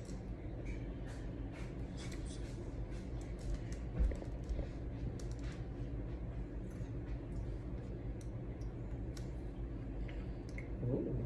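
Faint, scattered clicks and rustles of hands working on a doll's hair, over a low steady hum, with one louder thump about four seconds in.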